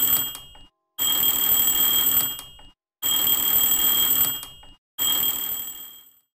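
Twin-bell alarm clock ringing in bursts of about a second and a half, each dying away, repeating every two seconds. It stops near the end.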